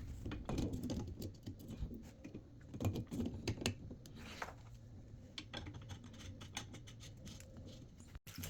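Light, irregular clicks and taps of small metal faucet parts being handled and fitted back into a bathtub faucet, the part with its new washers going back in.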